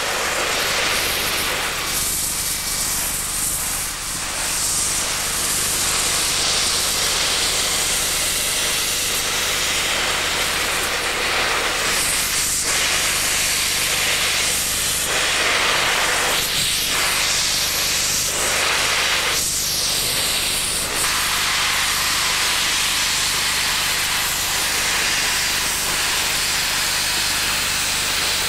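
Steam locomotives 2705 and 3642 venting steam at track level from their cylinder drain cocks: a loud, steady hiss that swells a few times in the middle.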